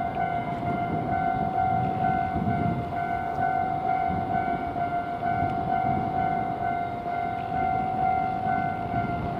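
Japanese level-crossing alarm bell ringing steadily in rapid, evenly repeated dings, with the rumble of a train passing over the crossing underneath.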